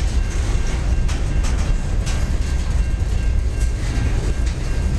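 Freight train of covered hoppers and tank cars rolling past: a steady low rumble of wheels on rail, with a few sharp clicks.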